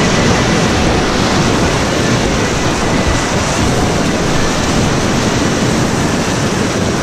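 Whitewater rapids rushing close around an inflatable kayak: a loud, steady hiss of churning water.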